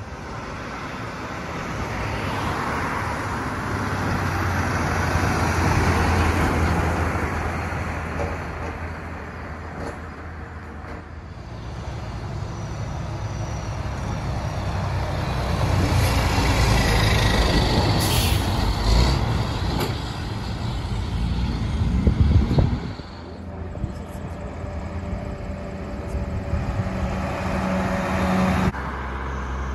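Heavy diesel dump trucks driving past one after another, engines running and tires rumbling on the road, with the sound changing suddenly at a few points.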